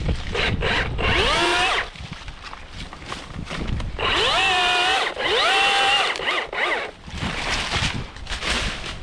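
Battery-powered chainsaw revving in three short bursts. Each time the motor whines up quickly to one steady pitch for under a second, then stops. Scattered knocks and clatter come between the bursts.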